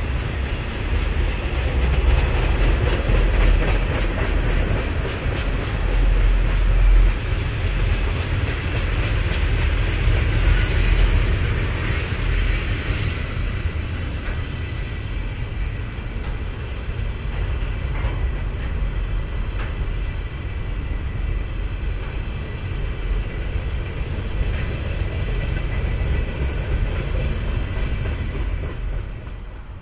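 Freight cars of a CSX manifest train rolling past, tank cars and then container cars: a steady rumble of steel wheels on rail with occasional clicks, dropping away at the very end.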